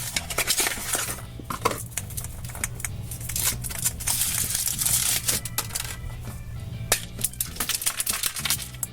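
Hands unwrapping a chocolate surprise egg: foil crinkling and a run of small plastic clicks and rattles as the egg and its toy capsule are opened, with background music.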